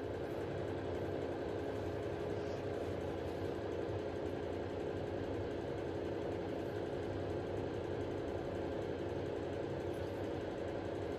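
A steady mechanical hum: a small motor running evenly, with several held tones and no change in level.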